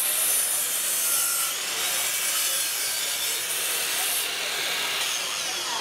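Makita 18V X2 brushless 10-inch miter saw cutting through a wooden board, with a steady hissing saw noise for about four seconds. The noise eases near the end as the cut finishes.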